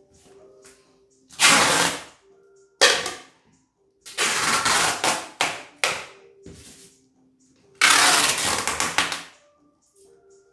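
Packing tape being pulled off the roll to seal a large cardboard carton, in about five loud rasping pulls of half a second to two seconds each.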